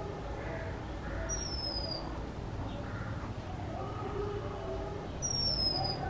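Oriental magpie robin giving two clear, high whistled notes, each sliding slightly down in pitch and lasting under a second, about four seconds apart.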